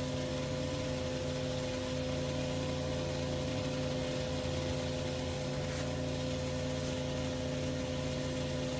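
Petrol-engined 3950 psi pressure washer running steadily at constant speed, with an even hiss above the engine note.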